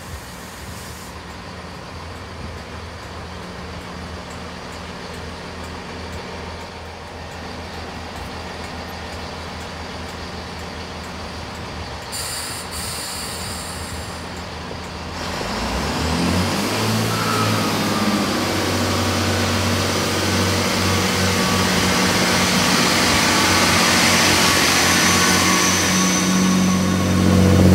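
GWR Class 165 diesel multiple unit idling at the platform, its underfloor diesel engines humming steadily. About halfway through the engines rev up and the train pulls away, growing louder as it accelerates past.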